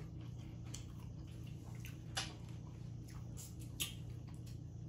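Wet cracks and clicks of boiled crawfish shells being peeled by hand and eaten, with a few sharper snaps, loudest about two seconds in and near four seconds, over a steady low hum.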